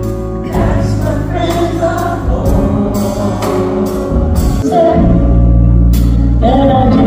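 Background music: several voices singing together in a gospel or choir style over a band with a steady drum beat.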